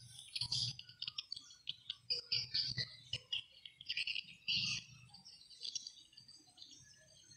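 Faint, irregular high chirps of small birds, with a few soft scuffs mixed in.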